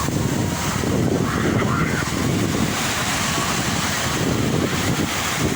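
Sea waves washing onto the shore in a steady rush, with wind buffeting the microphone and a fluttering rumble in the low end.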